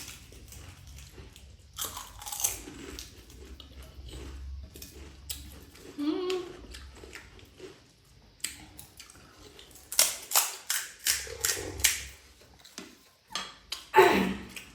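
People biting and chewing crisp panipuri, with scattered sharp crunches and a quick run of them about two-thirds of the way through.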